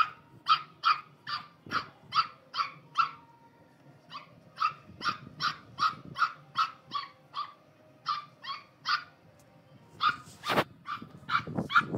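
Pug puppy yapping at a rabbit in quick runs of short, high barks, about three a second, with brief pauses between runs; the puppy is afraid of the rabbit. A single loud knock comes about ten and a half seconds in.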